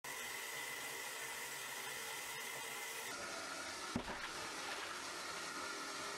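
Wastewater rushing and splashing along the perforated stainless-steel distribution troughs of a small non-electric sewage treatment plant, a steady even rushing, with one short thump about four seconds in.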